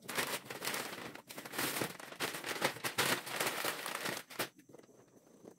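Brown kraft wrapping paper being pulled off a cardboard box and crumpled by hand, a continuous crackling rustle that stops about four and a half seconds in.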